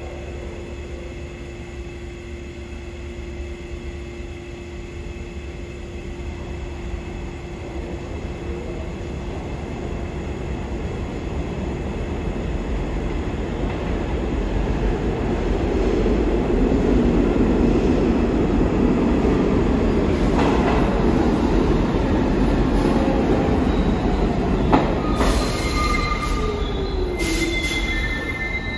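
New York City subway train arriving in the station: the rumble of wheels on rails grows louder over about fifteen seconds and stays loud. Near the end, high-pitched brake and wheel squeals come in as the train slows.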